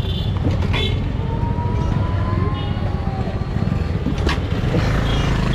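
Motor vehicle on the move: a steady, loud low rumble.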